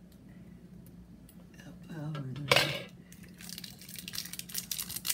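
Crinkling and rustling of a ration chocolate bar's wrapper as it is opened, starting about three and a half seconds in, after a single short knock.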